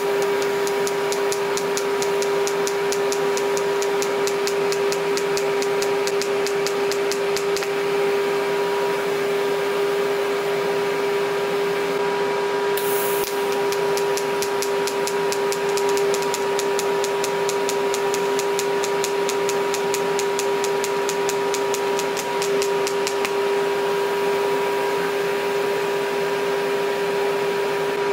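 TIG welding arc from an EWM Tetrix 300 AC/DC inverter burning on stainless steel in DC pulse mode, without filler: a steady hum with a fast, even ticking from the current pulses. There is a brief hiss about halfway through, and the ticking stops near the end.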